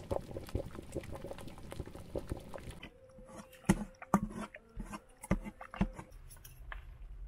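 A pot of lamb and potato abgoosht bubbling at a boil, with dense popping. Then a goosht koob (meat pounder) mashes the cooked meat and potatoes in a pot, five or so wet thuds about half a second apart.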